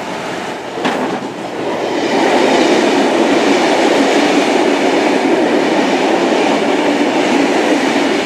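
A Class 66-hauled freight train passing at speed: a steady rumble and clatter of wheels on rail, with a sharp click about a second in, swelling about two seconds in and then holding.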